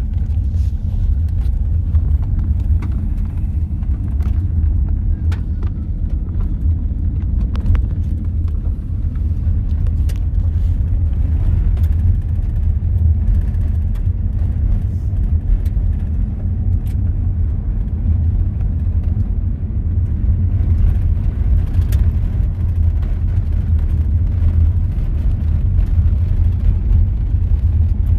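Steady low road rumble and engine drone inside a vehicle driving on a dirt and gravel road, with a few faint ticks scattered through it.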